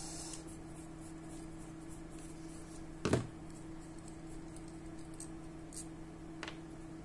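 Small metal-on-metal handling sounds as an old carburettor is taken apart with a screwdriver: light scratching and ticks, a sharper knock about three seconds in and a smaller click near the end, over a steady low hum.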